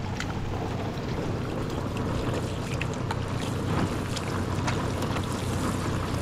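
Steady rain falling, with scattered drips and ticks over a low steady hum.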